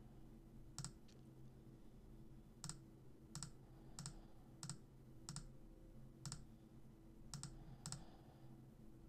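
Computer mouse button clicking about nine times at uneven intervals, over a faint steady low hum.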